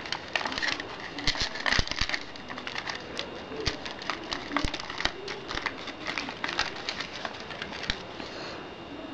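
Aluminium foil and paper crinkling and rustling in the hands, as irregular small crackles and clicks, while a foil-covered paper reflector is folded and handled.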